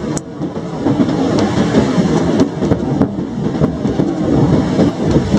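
Heavy rain pouring steadily in a severe thunderstorm, with scattered sharp ticks of single drops striking close by.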